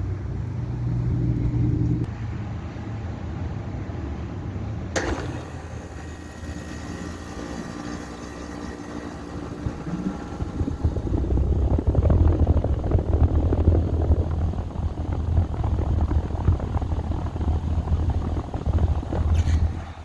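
A 2022 Carrier Comfort 5-ton air conditioner condenser starting up. A nearby Trane unit's low rumble drops away about two seconds in. About five seconds in there is a sharp click, then the Carrier's compressor hums steadily. From about the middle on, a louder, fluttering rush of air from the outdoor fan builds.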